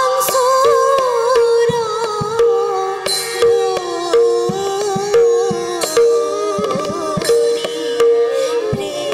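Live Assamese Borgeet ensemble playing an instrumental passage: violin and bamboo flute carry a winding melody over a steady tanpura drone, with strokes on a two-headed barrel drum.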